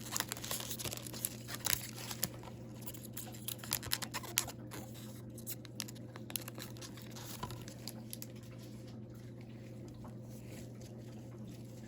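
A hockey card pack's wrapper crinkling and tearing as it is ripped open and the cards are handled, in a run of sharp crackles that thins out after about five seconds, over a steady low hum.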